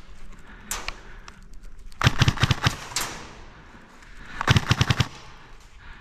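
Airsoft gun firing rapid bursts: a few shots about a second in, then two bursts of about half a second to a second each, some two seconds apart.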